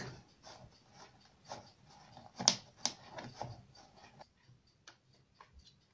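Processed cheese rubbed back and forth on a fine metal grater over a plastic container: soft repeated scraping strokes, with a couple of sharper clicks about two and a half seconds in. The strokes grow fainter after about four seconds.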